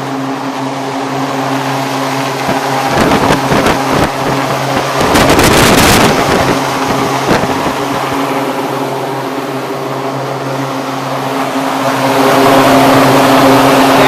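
Shop-built 24-inch box fan on a 1 hp three-phase electric motor running at full speed, a steady hum under loud rushing air. From about three to six seconds in, its airflow buffets the microphone, and it grows louder near the end.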